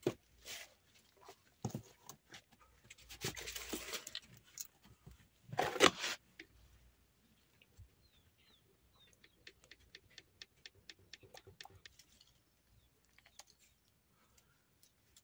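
Handling sounds at a wood cooking fire: scattered knocks and a rustling stretch, then a loud thump about six seconds in. After that comes a run of quick, light clicks, about five a second, for a few seconds.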